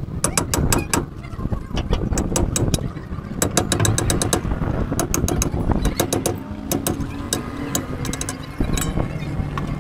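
Hand hammer striking a steel drift held against a wheel hub: runs of sharp metallic knocks in quick succession over a low rumble.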